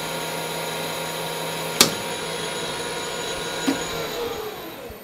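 Lathe motor and spindle running with a steady whine of several tones while a skim cut is taken, with a sharp click about two seconds in and a smaller one later. Near the end the whine falls in pitch and fades as the spindle is switched off and coasts down.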